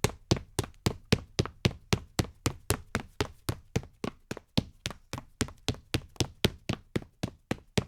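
Footsteps of a man's leather-soled shoes on a solid wood floor, walking at a steady, even pace of about three sharp heel-and-sole taps a second.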